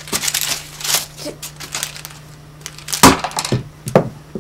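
Rustling and rummaging, as in a search for a remote, followed about three seconds in by several quick thumps and knocks, over a steady low electrical hum.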